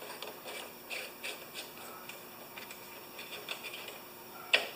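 Small carburetor parts being fitted by hand onto a Honda lawn mower engine: scattered light clicks and scrapes of parts and gaskets being pushed into place, with one sharper click near the end.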